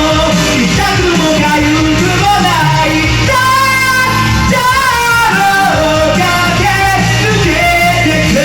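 A solo voice singing a fast pop-rock song over a karaoke backing track with band, bass and drums.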